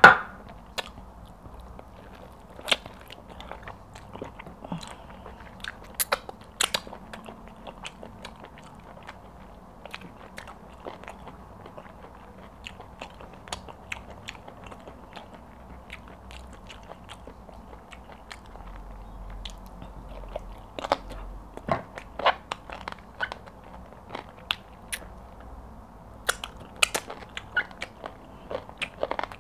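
Close-miked eating sounds: a hand working soft pounded yam and egusi soup on a plate, and chewing with many scattered sharp mouth clicks and smacks.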